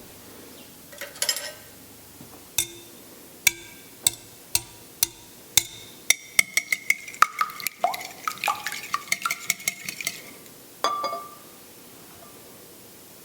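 Metal utensil clinking against a glass or ceramic dish. A few separate taps come first, then a quick run of clinks, about five a second, for some four seconds, as in stirring or beating, then one last knock.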